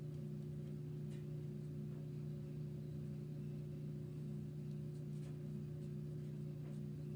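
Steady low electrical or mechanical hum, with a fainter tone pulsing on and off over it about three times a second and a few faint light ticks.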